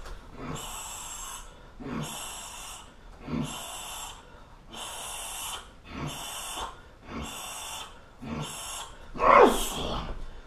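A Muay Thai fighter breathes out sharply through the teeth with each kick: a rhythmic hissing about once a second, each breath starting with a soft knock. Near the end he gives a louder voiced yell.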